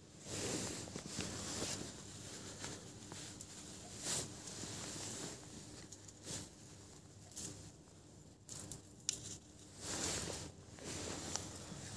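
Hands handling a handmade slip-joint folding knife: irregular rustling and scraping, with a few sharp clicks as the blade is folded shut against its spring.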